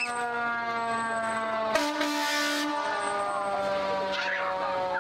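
Fire engine siren sounding one long tone that slowly falls in pitch as it winds down. About two seconds in there is a click and a short burst of hiss.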